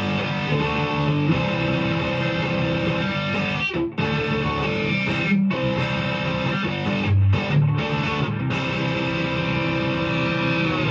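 PRS S2 Standard 24 electric guitar played on its neck pickup in full humbucker mode through an amp: sustained notes and chords, stopped briefly a few times.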